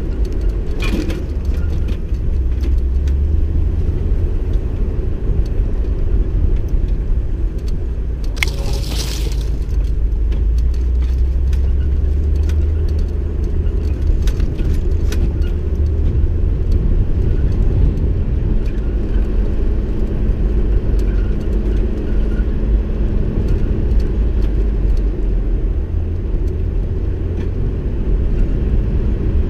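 Vehicle driving an off-road dirt track: a steady low engine and road rumble with scattered rattles and clicks from the rough surface, and a brief rushing noise about nine seconds in.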